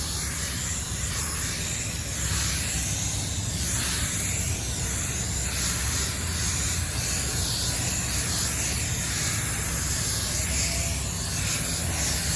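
Water-based primer being sprayed onto a car door panel: a steady hiss of spray that swells and eases slightly, over a steady low hum.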